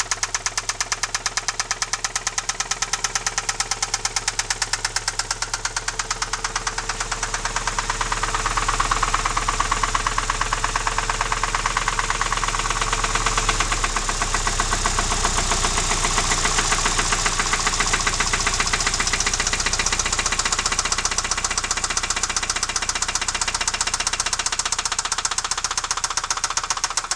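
Alfa Romeo 156 engine running with a loud, rapid metallic knock in time with the engine, a ringing clatter that appeared suddenly at motorway speed; the owner doubts it is the variable valve timing (cam phaser).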